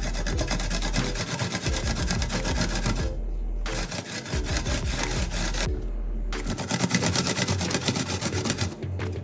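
A garlic clove being grated on a flat stainless-steel grater: quick rasping back-and-forth strokes, broken by two short pauses, about three seconds in and again about six seconds in.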